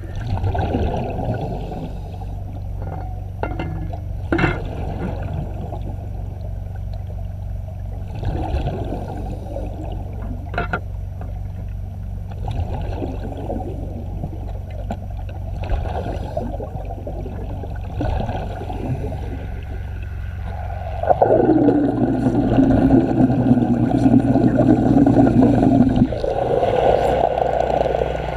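Underwater gurgling and bubbling with scattered clicks over a steady low hum, growing louder for about five seconds near the end.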